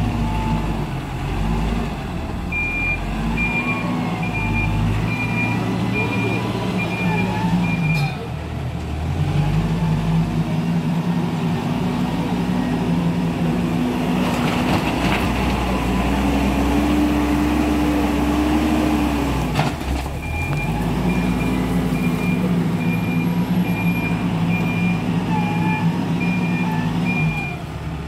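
Hidromek 102B backhoe loader's diesel engine working, its pitch stepping up and down with the throttle. Its reverse alarm beeps steadily in two spells, one early and one in the second half, as the machine backs up.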